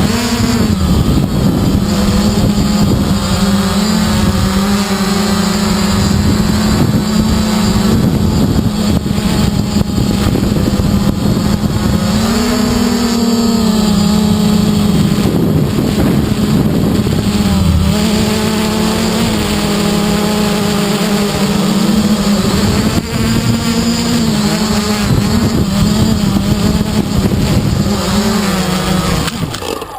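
Electric motors and propellers of a 330-size quadcopter buzzing, heard from its on-board GoPro, the pitch wavering up and down as the motors speed up and slow down, with wind buffeting the microphone. The motors wind down near the end.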